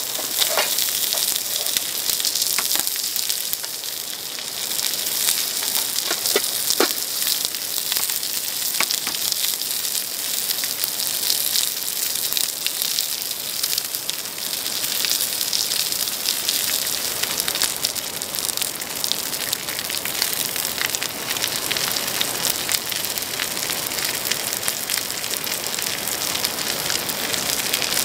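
Pork belly sizzling on a hot grill pan: a steady frying hiss with scattered small pops and crackles.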